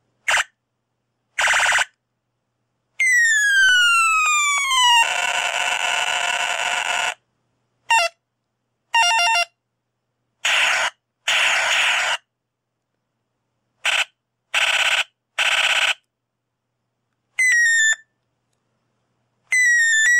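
Electronic sound effects from a 1989 Echo Keyller sound-effect keychain, played one after another with silence between them: short buzzes, a falling laser sweep, a longer noisy blast, and falling chirps near the end.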